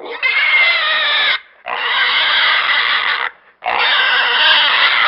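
Pig squealing: three long, loud squeals with short breaks between them.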